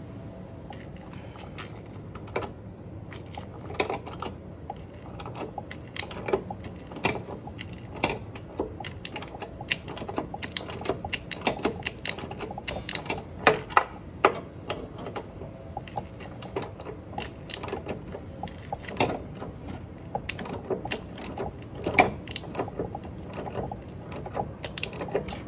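Hand ratchet wrench clicking in irregular runs of short clicks as an upper control arm mounting bolt is backed out, with a few louder metallic clicks standing out midway and near the end.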